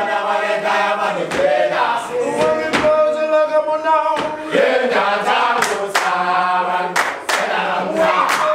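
A group of young voices singing together in chorus, holding long notes. Sharp slaps and stamps of a gumboot dance cut in, coming thicker in the second half.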